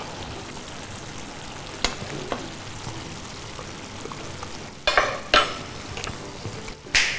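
Cauliflower curry simmering and sizzling in a pan as a spoon stirs it, a steady hiss with a couple of light clicks about two seconds in. A few short, louder sounds come near five seconds and just before the end.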